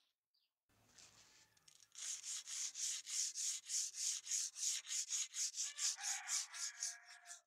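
Sandpaper rubbed back and forth by hand along a wet steel cleaver blade forged from leaf spring, in quick even strokes of about three a second, starting about two seconds in.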